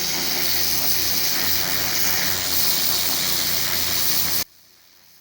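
Pressure washer running: a steady engine hum under the loud hiss of the water spray. It cuts off suddenly about four and a half seconds in.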